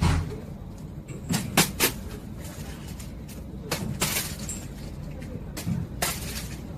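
Steady low rumble like a running vehicle, with several short clicks and knocks scattered through it.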